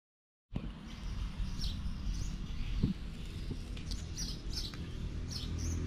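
Birds chirping in short, high calls scattered every second or so over a steady low outdoor rumble, with one thump about three seconds in.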